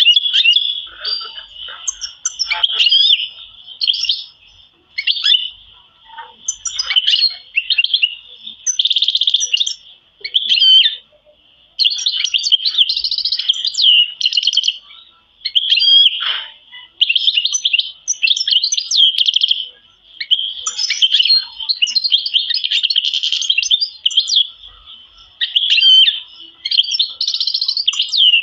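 Domestic canaries singing: long, fast rolling trills and chirps, phrase after phrase with short pauses between.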